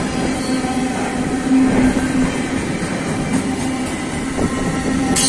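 Freight train of tank wagons rolling past at close range: a steady rumble of steel wheels on the rails with a steady hum running through it.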